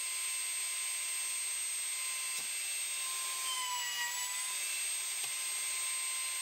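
Wood router running at full speed with a steady high whine, mounted in a homemade key-slot machine. The pitch sags briefly about four seconds in as the bit is lowered and cuts a slot into the wooden workpiece.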